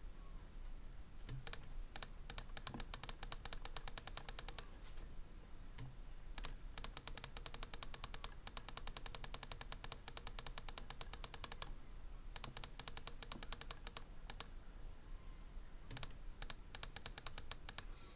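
Computer mouse clicking in four quick runs of evenly spaced clicks, each lasting a few seconds with short pauses between.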